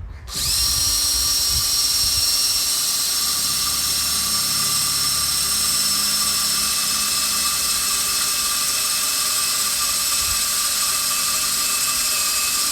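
Handheld electric drill running at steady speed, boring the wider top hole through a quarter pipe's metal coping pipe. The drill gives a loud, steady, high whine that starts just after the beginning.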